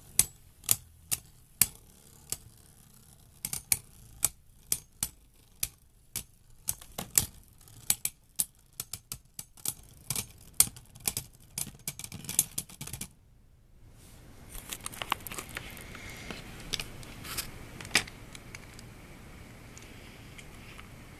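Two Beyblade Burst tops spinning in a plastic stadium, clacking against each other in many sharp, irregular clicks. About thirteen seconds in the sound cuts out briefly, then a single top spins on with a steady whirr and a few more clicks.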